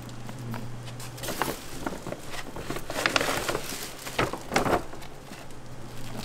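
Plastic scoop digging into a paper sack of flour and tipping flour into a stainless-steel mixing bowl: a few bouts of paper rustling, scraping and soft pouring, the loudest in the second half.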